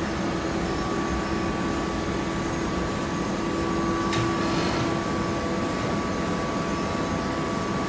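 Hydraulic baling machinery running with a steady hum and two steady tones, one low and one higher. A brief tick comes about four seconds in.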